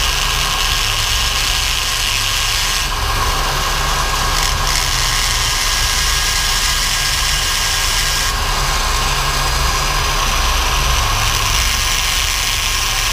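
Flex-shaft rotary tool running steadily as its bit grinds through the welded top cap of a stock fuel injector. The grinding hiss lessens about three seconds in and strengthens again around eight seconds.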